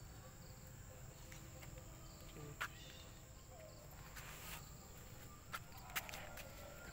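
Faint outdoor ambience: a steady high-pitched whine and a low rumble, with a handful of sharp clicks in the second half.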